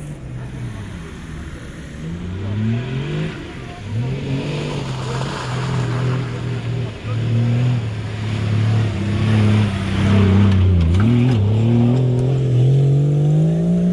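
Off-road 4x4's engine revving up and down again and again as it drives over a dirt competition track. It grows louder as the vehicle approaches and passes close by, with a long rising rev near the end.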